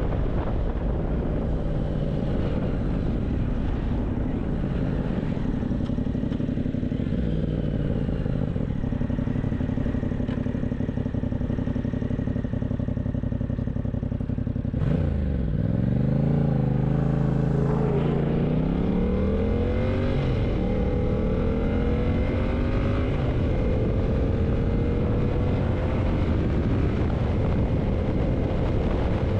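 Yamaha MT-07's parallel-twin engine running while the bike is under way, with wind on the microphone. About halfway through there is a sharp click and the engine note drops, then it gets louder and the revs climb in several steps before settling into a steady, slowly rising note.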